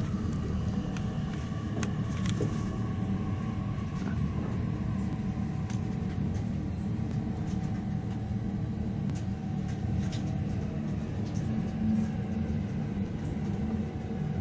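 Steady low rumble of a local commuter train running, heard from inside the lower deck of its double-decker Green car, with a few faint clicks.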